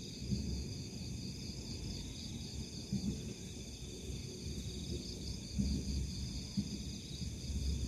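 Steady chorus of night insects such as crickets, held in several high bands, with a low rumble and a few soft low bumps on the microphone.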